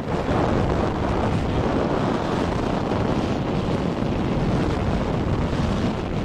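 Steady wind buffeting the microphone over vehicle and road noise while riding.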